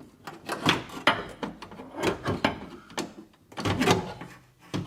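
Car power window regulator and its motor being angled out through the door's inner panel opening, making irregular metal clunks, scrapes and rattles, loudest about four seconds in.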